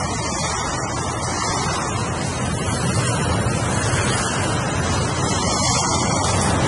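Ocean waves breaking in a steady, unbroken rush of surf.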